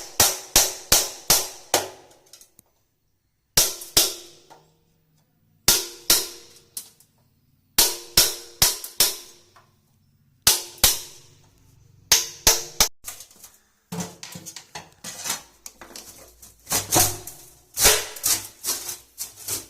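Hammer striking metal in quick bursts of about four to six ringing blows, with short pauses between bursts.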